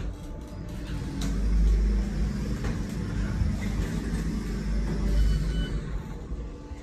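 Inside the car of a 2008 Schindler traction elevator: a sharp click as it sets off, then the low rumble of the car travelling in the shaft, easing off near the end. A brief high beep sounds about five seconds in.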